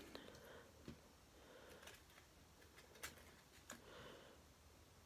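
Near silence: room tone with a few faint, scattered clicks and light rustles, from a hand handling moth cocoons and a pupa on a tabletop.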